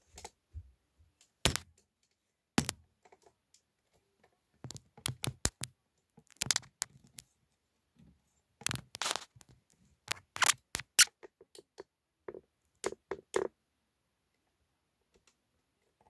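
Irregular plastic clicks, knocks and cracks in scattered clusters, from hands handling the opened indoor unit of a wall-mounted room air conditioner and its plastic parts during a swing-motor replacement.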